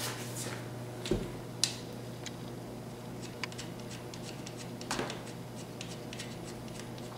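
Light metal clicks and taps as a nut is threaded by hand onto a StreetStrider's kingpin bolt under the steering knuckle. There are a few sharper clicks, one about a second in with a dull knock, and a run of faint quick ticks in the middle, over a steady low hum.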